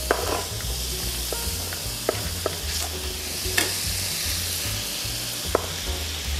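Butter melting and sizzling in a hot stainless-steel skillet: a steady frying hiss, with a few light knocks as more slices of butter are dropped into the pan.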